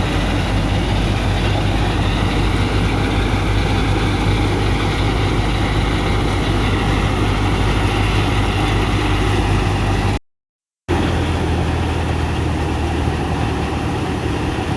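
Wheat threshing machine running steadily, a loud continuous engine-driven hum and clatter. It breaks off in a short silent gap about ten seconds in and resumes with a slightly lower hum.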